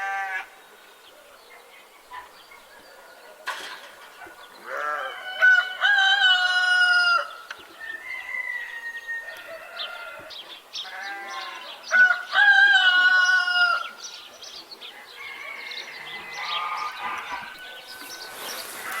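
A rooster crowing twice, each crow a long call of about two and a half seconds. Between the crows come shorter clucks and calls from other farmyard birds, and there is a single sharp click early on.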